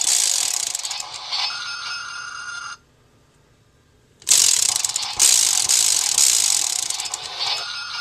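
Shinkenmaru toy sword's disk spun by hand: a rapid ratcheting clatter, twice, with a silent gap of over a second in the middle. The toy's electronic sound effects come from its small speaker after each spin.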